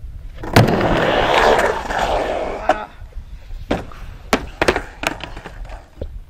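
A skateboard drops in on a wooden vert ramp: a sharp clack as the board lands about half a second in, then loud wheel roll on the wood for about two seconds. This is followed by a scattered series of sharp clacks and knocks as the skater bails and the loose board clatters on the ramp.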